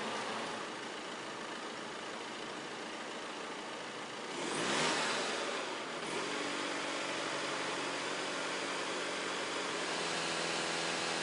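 Volkswagen 2.0 TDI common-rail diesel engine running at idle during the EGR basic-setting test. About four and a half seconds in the revs rise, then hold steady at the higher speed.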